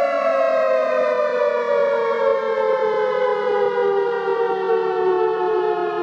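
Air raid siren wailing, a single loud steady tone falling slowly in pitch.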